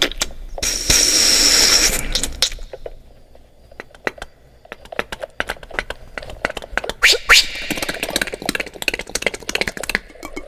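Human beatboxer making sound effects with his mouth: a loud hiss near the start, then a long run of quick clicks and pops, with a rising whistle-like glide past the middle and more hissing near the end.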